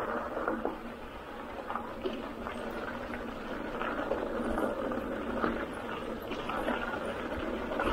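Steady rolling noise with scattered small clicks and knocks, typical of a mountain bike riding over a rough gravel trail.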